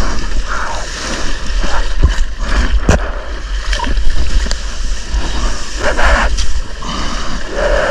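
Sea water splashing and sloshing around a longboard as a surfer paddles it prone, hands stroking through the water, over a steady low rumble, with two sharp knocks a second apart and louder splashes near the end.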